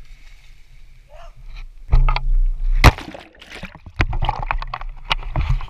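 Water splashing and sloshing close by: a loud splash about two seconds in, a sharp knock a second later, and more churning splashes with knocks from about four seconds on.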